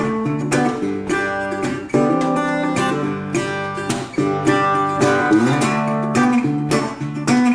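1930 National Triolian resonator guitar played unamplified: a blues instrumental intro, with chords struck in a steady rhythm and left ringing.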